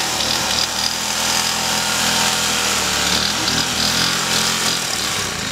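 Small lawn mower engine running steadily under load as it drives a homemade push-mower go-kart, its pitch sagging briefly about three seconds in.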